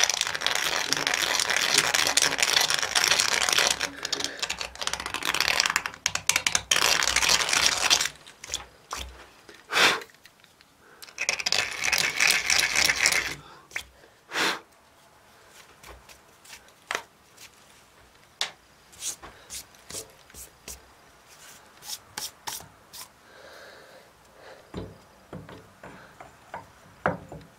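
A hand deburring tool scraping around the edge of a freshly drilled hole in a steam-engine cylinder casting, for about eight seconds and again briefly a few seconds later. After that come scattered light clicks and knocks of the workpiece and tools being handled.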